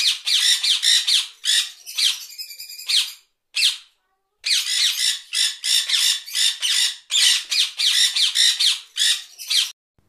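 Parrot squawking: a run of harsh, repeated squawks, two or three a second, with a short break about four seconds in.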